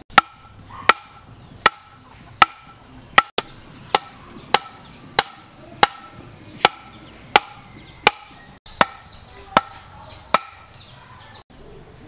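Bamboo struck hard in a steady rhythm: about fifteen sharp knocks roughly three-quarters of a second apart, each with a short hollow ring. The strikes come from a machete chopping the end of a bamboo pole to a point and from a heavy bamboo section ramming bamboo stakes into the ground.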